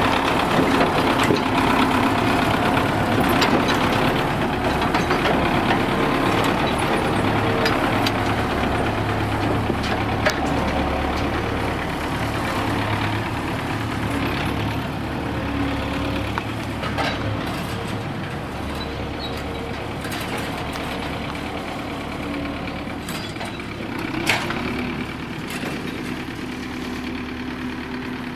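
Diesel engine of a wheeled farm tractor with a front loader running. It is loud at first and grows steadily fainter as the tractor drives away.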